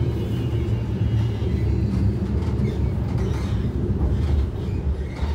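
Vienna line 30 tram running along the track: a steady low rumble of wheels on rails and running gear, heard from inside the car.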